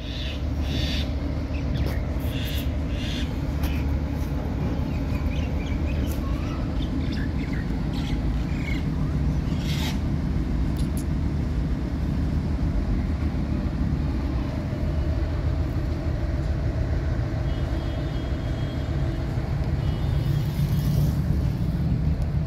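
Outdoor background of steady low traffic rumble, with a few short bird chirps in the first few seconds and again about halfway through.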